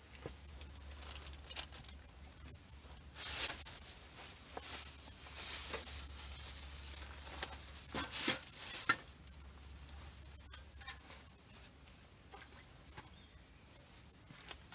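Rustling and handling sounds with scattered light knocks and clicks, loudest in a short burst about three seconds in and again from about five to nine seconds, over a steady low hum.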